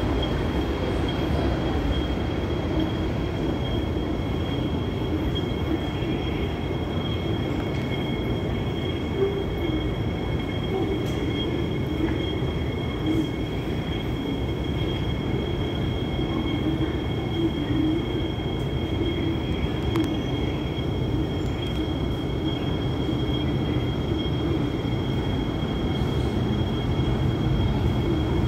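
Underground metro station platform behind screen doors: MTR Kwun Tong line trains, one pulling out at the start and the next approaching near the end, over a steady low rumble with a constant high-pitched whine. The sound grows louder as the incoming M-Train nears.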